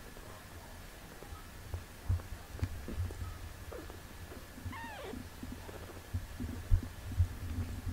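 Cat purring, a low steady rumble, with soft licking noises and a few small thuds, the strongest near the end. About five seconds in comes one brief, faint, high kitten mew.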